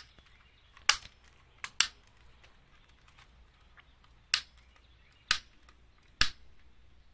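Long-necked utility lighter's piezo igniter being clicked, six sharp clicks at irregular intervals, two of them in quick succession near two seconds in.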